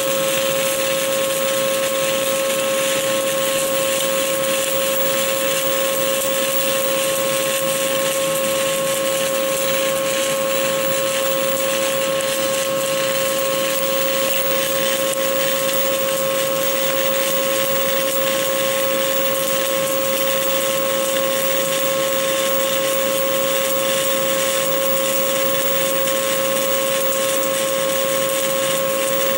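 Stick-welding arc from a 2.5 mm Esab OK 48.00 (E7018 low-hydrogen) electrode burning steadily while running an open root pass. It makes a continuous hiss with a constant hum, unbroken throughout.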